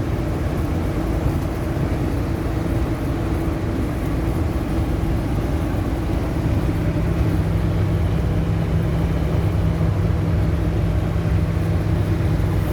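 Steady vehicle running noise, a low rumble of engine and road with a faint steady hum.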